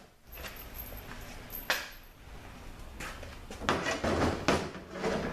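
Metal clinks and clunks of transmission parts handled on a steel workbench. There is one sharp clink about two seconds in, then a cluster of knocks near the end as the cast-aluminium 66RFE oil pump body is turned over and set down.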